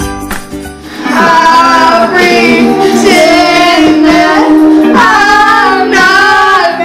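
Two girls singing a pop song loudly from about a second in, after a brief stretch of instrumental music.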